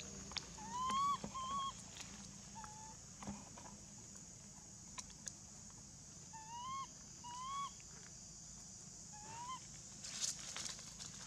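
Baby long-tailed macaque giving about six short coo calls, each rising then falling, mostly in pairs. These are distress calls while its tail is held and it tries to pull free. Dry leaves rustle near the end as it scampers away, over a steady high hiss.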